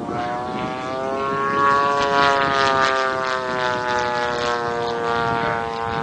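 Radio-controlled Pitts biplane's engine and propeller running in flight. The note rises a little at first, then sinks slowly and steadily.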